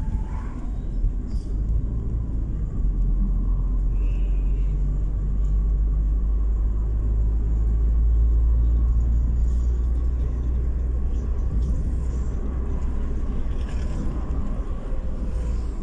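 Steady low rumble of a car's road and engine noise heard from inside the cabin while driving, growing a little louder midway.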